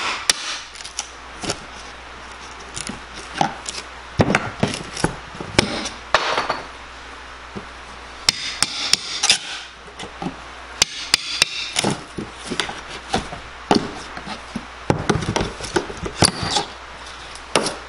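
Hammer striking a screwdriver used as a chisel, and tapping the wood directly, to break cut wood blocking loose inside a wall cavity: irregular sharp knocks, often in quick clusters, with a couple of short scraping stretches between them.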